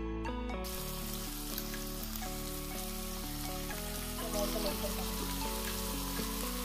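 Masala-coated snakehead fish sizzling in hot oil in a nonstick frying pan, shallow frying. The sizzle starts under a second in, rises briefly about four seconds in as more pieces are laid into the oil, then stays steady.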